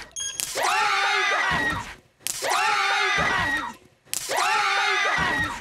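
A group of young women and men screaming together as a prank electric shock runs through their joined hands. The same burst of screams, each about a second and a half long, is heard three times in a row with short gaps between.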